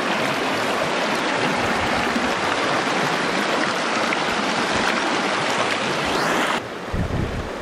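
Shallow creek riffle rushing and splashing over rocks close to the microphone. The rushing drops off abruptly about six and a half seconds in, and a brief low thump follows.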